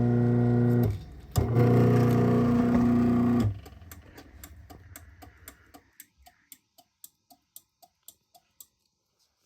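Craftsman half-horsepower chain drive garage door opener's motor running. It stops a second in, then runs again for about two seconds as the door reverses after the safety sensor beam is broken. Then a steady run of faint clicks, about three a second, as the opener light blinks to signal a safety sensor fault.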